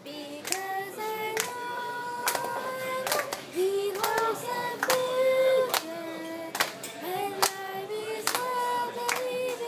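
A girl singing a slow melody with long held notes into a handheld microphone, with sharp claps keeping time about once a second.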